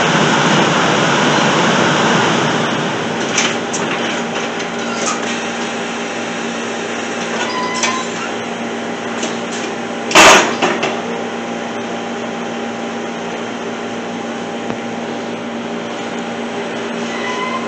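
Steady outdoor background noise with a faint hum, a few light clicks, and one loud, sharp, short noise about ten seconds in, followed by two smaller ones.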